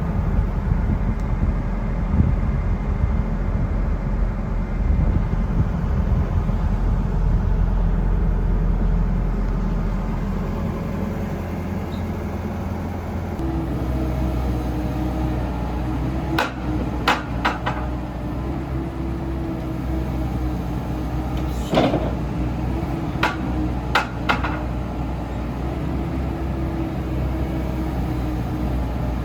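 Komatsu PC78US-8 hydraulic excavator running steadily; about 13 seconds in the engine note changes and a steady higher tone joins, as if the machine goes under hydraulic load. In the second half come several sharp metallic knocks, a pair and a few singles.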